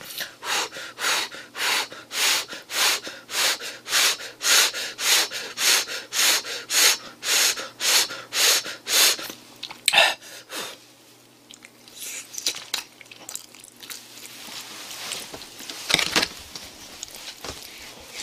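A person huffing quick, airy breaths in and out through an open mouth, a little over two a second, to cool a scalding-hot dumpling in the mouth. The huffing stops about ten seconds in with a sharp click, and fainter, uneven breathing follows.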